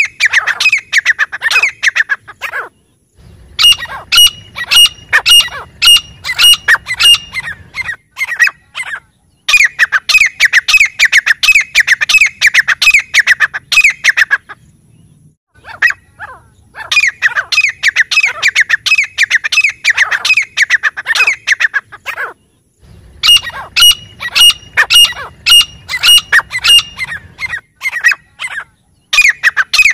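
Grey francolin calling: rapid series of loud, repeated, ringing notes in bouts of a few seconds, broken by short pauses.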